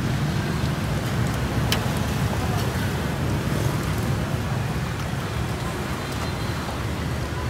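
Steady low rumble and hiss of a busy street-side pho stall while hot broth is ladled into a bowl of pho, with a light clink about two seconds in.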